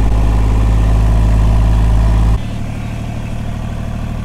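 A vehicle engine running steadily at low revs. About two seconds in, it drops suddenly to a quieter, faster-pulsing engine sound.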